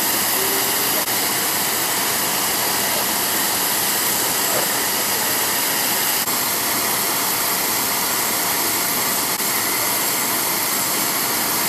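Steady rush of a jet turbine with thin, high whining tones, holding an even level throughout.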